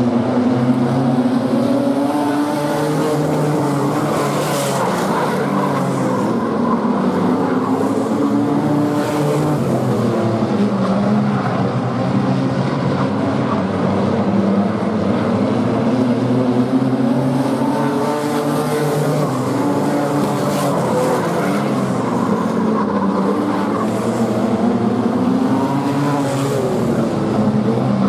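A pack of wingless sprint cars racing on a dirt oval, their V8 engines rising and falling in pitch over and over as the drivers go on and off the throttle through the turns and down the straights.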